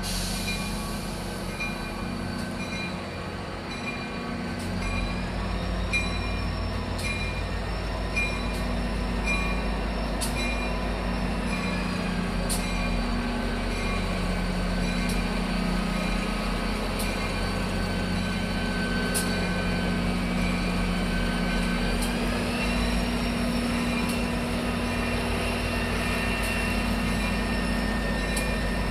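EMD GP40 diesel locomotive running steadily as its train pulls in, with a low engine hum under high wheel squeal. The squeal rises in pitch a few seconds in and falls again near the end, with scattered light clicks throughout.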